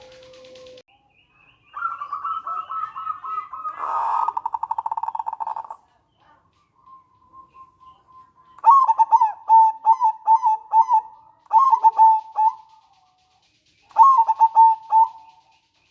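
Zebra dove (perkutut) calling: a rapid rattling run of notes, the 'nretek', from about two to six seconds in. Then two phrases of short, staccato coos, the 'manggung' song, near the middle and again near the end.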